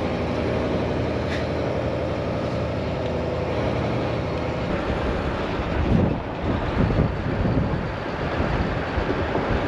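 Farm vehicle engine running steadily during grain-truck loading at corn harvest. From about six seconds in, irregular low thumps and buffeting cover the hum.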